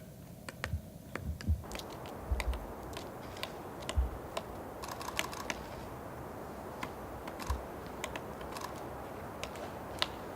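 Three-toed woodpecker pecking and tapping at bark while foraging: irregular sharp taps, some heavier, not a drumming roll, over a steady hiss that comes up about one and a half seconds in.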